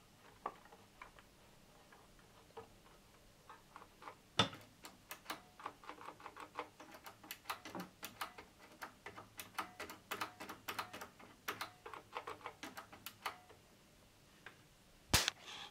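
Rapid, irregular clicking from the Tektronix 465 oscilloscope's controls being turned back and forth by hand, working freshly sprayed contact cleaner into the pots and switches. A louder knock comes near the end.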